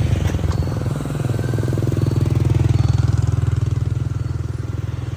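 A motor vehicle's engine running steadily, growing louder toward the middle and then easing off.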